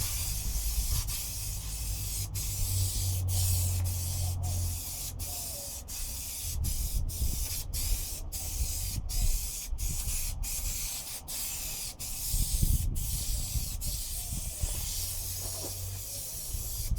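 Aerosol can of 3M headliner and fabric adhesive spraying: a steady hiss with many very short breaks, about one or two a second.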